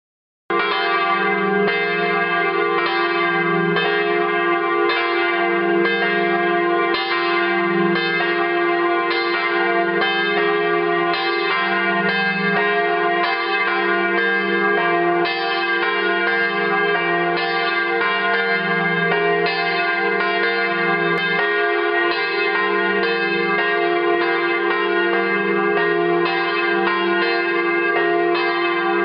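Church bells in full peal: several bells ringing together in a continuous stream of overlapping strokes, with a deep tone that swells and fades beneath them. The ringing begins about half a second in.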